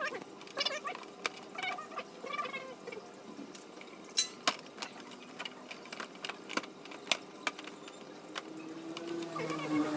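Scattered sharp clicks and knocks of a scooter's plastic body panels being handled and pressed into place.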